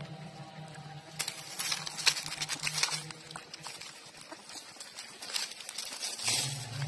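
Puppies suckling at their mother's teats: a run of wet smacking and clicking noises from their mouths, busiest a second or two in and again near the end.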